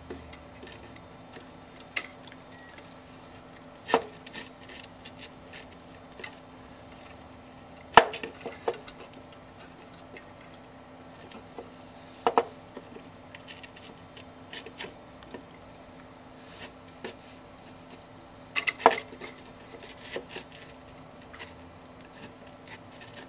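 Hand screwdriving on a DLP television's colour wheel housing: scattered sharp clicks and taps of the screwdriver and screws against the housing's plastic and metal as the screws are set and driven in, a few of them much louder than the rest. A faint steady hum runs underneath.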